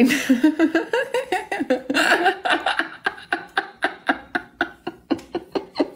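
A man and a woman laughing heartily together: a long string of short, even bursts, about four a second.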